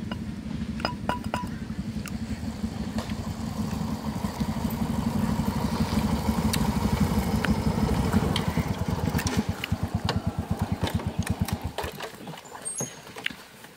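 Several motorcycle engines running as the bikes ride up, building to their loudest about halfway. They then slow to a idle with separate, slower beats and shut off about twelve seconds in.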